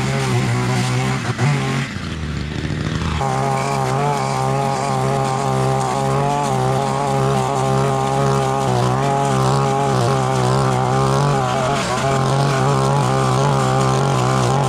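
Two-stroke petrol line trimmer (brushcutter) running at a steady high speed while its string head cuts tall grass. There is a short break about two seconds in.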